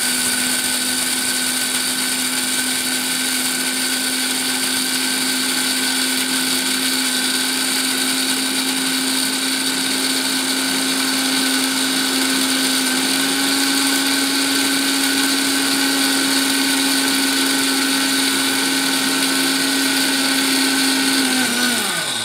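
Prestige Regal 750 W mixer grinder running at full speed, grinding dal into powder in its steel jar: a steady motor whine over a grainy grinding noise. Near the end it is switched off and the motor's pitch falls as it spins down.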